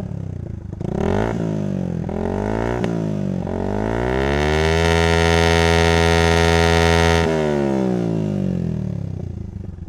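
Old Yamaha Vixion's single-cylinder 150cc engine revved through a 3Tech Ronin Katana SE aftermarket exhaust with its valve fully open in racing mode. A few short throttle blips come first, then a long rise to high revs that is held for about two seconds before falling back to idle.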